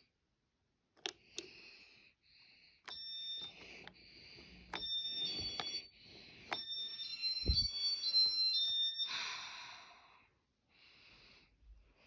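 Ceiling fan wall control beeping as its buttons are pressed: a run of short, high beeps at a few different pitches, mixed with sharp clicks of the presses.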